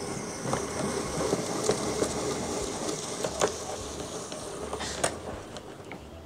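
Hand-cranked apple peeler-corer-slicer being turned: a steady scraping whir as the blade pares the peel and spiral-slices the apple along the threaded shaft, with a few sharp clicks from the mechanism.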